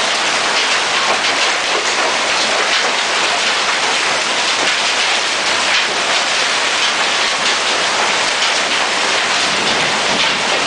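Heavy hailstorm: golf-ball-sized hailstones pelting down in a dense, steady clatter.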